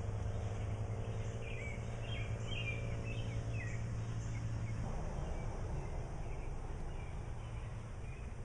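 Birds chirping outdoors, a quick run of short chirps in the first few seconds, over background noise and a steady low hum that stops about five seconds in.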